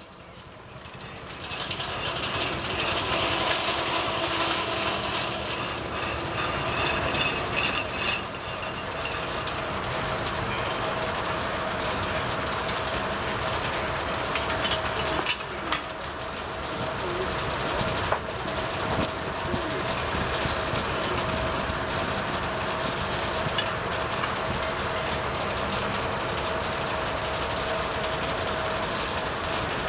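Antique gas and steam engines running, a steady mechanical din with a held hum and scattered sharp clicks and knocks.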